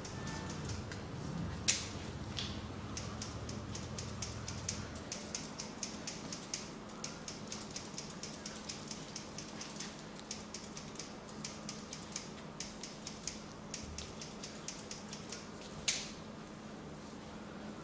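Rapid, crisp clicking and snapping of a barber's fingers pinching and kneading the skin of a client's neck during a neck massage, several small clicks a second, with two louder sharp snaps, one about two seconds in and one near the end.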